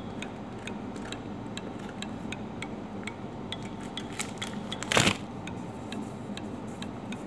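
Block of cheddar cheese being grated on a metal box grater: short, regular scrapes at about two or three a second, with one louder, sharper noise about five seconds in.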